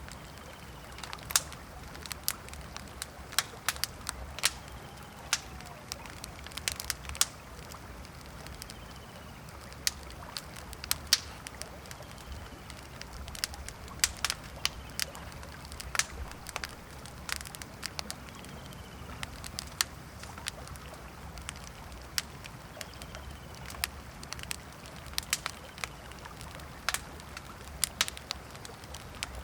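Campfire crackling, with irregular sharp pops of burning wood several times a second, over a steady low background rush.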